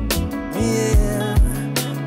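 Music with a steady drum beat about two and a half times a second over a held bass line.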